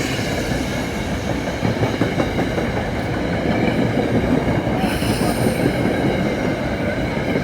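Train running through the station, a loud, steady rumble with high steady tones over it. A short hiss rises over it about five seconds in.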